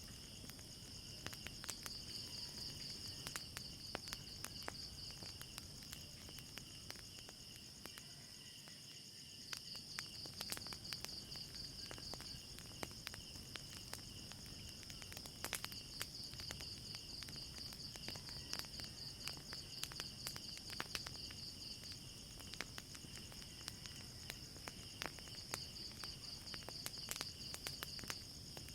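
Night insects trilling in a steady, high, pulsing chorus, with a wood fire crackling in short sharp pops throughout.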